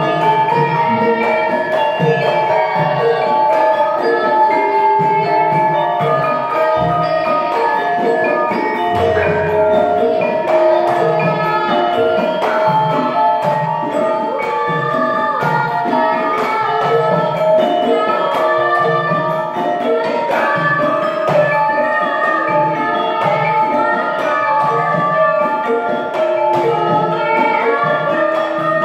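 Javanese gamelan ensemble playing: bronze metallophones and gongs ring out struck melodic notes over a steady low beat.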